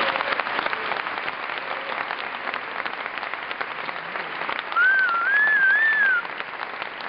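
Wedding guests applauding with many dense hand claps. About two-thirds of the way through, someone whistles a single wavy note that rises and falls for about a second and a half, louder than the clapping.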